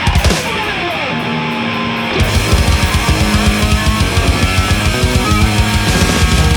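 Loud rock music with electric guitar; a sharp hit opens it, and the full band with a heavy, steady beat comes in about two seconds in.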